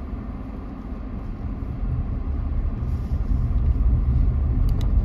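Car driving slowly over a rough dirt road, heard from inside the cabin: low engine and road noise that grows louder about halfway through, with a couple of light clicks near the end.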